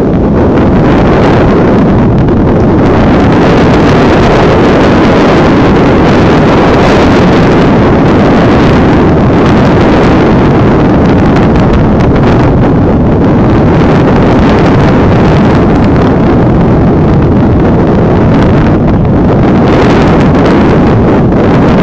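Wind buffeting the camera's microphone: a loud, steady rushing noise that covers everything else.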